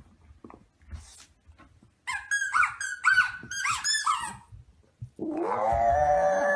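Rubber squeaky bone toy squeaked about five times in quick succession as a French bulldog chews it, then a drawn-out whining cry from the dog, about two seconds long, starting about five seconds in.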